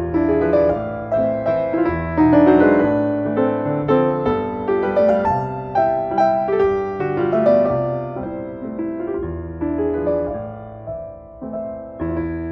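Piano music: a slow piece of struck notes and chords over low bass notes, each note fading after it is played.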